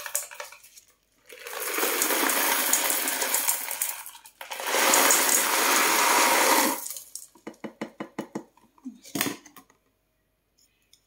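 Crystals of white rock sugar poured from a cardboard box into a glass jar of cut fruit: a continuous rattling pour in two long runs, then a run of separate clicks and a single knock near the end.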